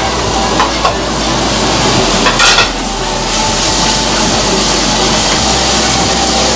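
A metal spoon clinks and scrapes as ginger-garlic paste is pushed off a plate into a wok of frying onions, with a cluster of loud knocks about two and a half seconds in. After that, a wooden spatula stirs in the pan over a steady sizzle of oil.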